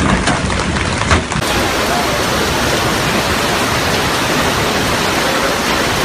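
Heavy hail and rain pelting down, a dense steady hiss, with a few sharper knocks of hailstones striking in the first second and a half, the loudest about a second in.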